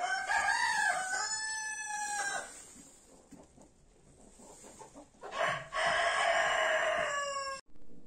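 Rooster crowing twice: a first crow of about two and a half seconds, then a second crow starting about five seconds in, lasting about two seconds and falling off at its end.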